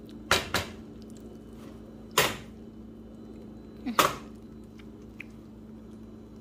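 Cookware being handled at the stove: four sharp clinks and knocks against the skillet, two close together near the start, one about two seconds in and one about four seconds in. A steady low hum runs underneath.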